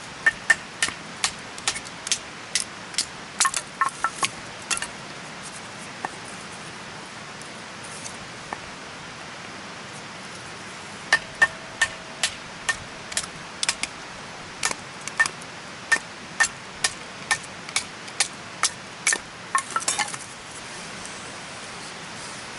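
Sharp metallic clinks of metal striking metal, in two runs of steady strikes about two to three a second with a long pause between them.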